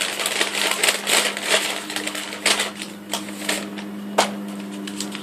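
Paper bag rustling and crinkling in quick irregular crackles as a hand rummages inside it for a folded paper slip.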